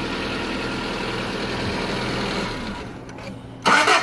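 1994 Honda Civic engine idling, then switched off a little under three seconds in. Near the end it cranks briefly and restarts. The no-start fault was a bad contact at the main relay.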